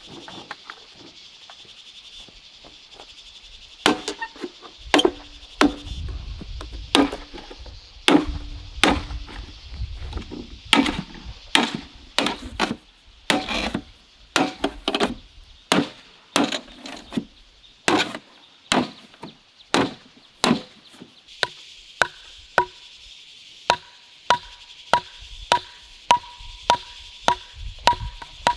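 A hand tool chopping again and again: uneven strokes at first, then a steady run of about two a second, each with a short metallic ring, in the last third. Insects buzz steadily underneath.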